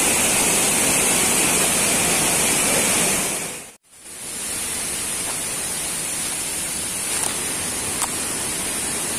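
Steady rush of falling water from a waterfall. It drops away briefly about four seconds in and comes back a little quieter, with two faint ticks near the end.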